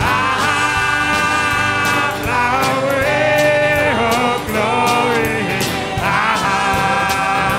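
Live band music with singing: long held, wavering sung notes over a steady drum beat.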